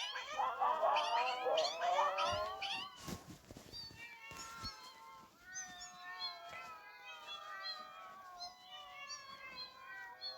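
Recorded cat meows from a cat-sound app, many playing over one another: a dense, loud tangle of meows for about three seconds, then a quieter stream of short overlapping calls.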